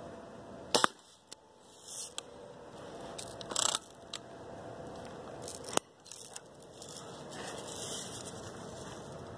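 Daisy Red Ryder lever-action spring-air BB gun firing: a sharp crack, doubled, just under a second in, and another single crack a little before the six-second mark. Smaller clicks and brief rustling handling noises fall between the shots.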